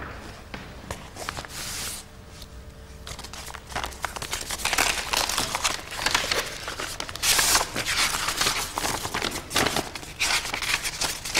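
Paper rustling and crinkling as an envelope and a folded handwritten letter are opened and handled. It is sparse at first and becomes a busy run of crackly rustles from about four seconds in.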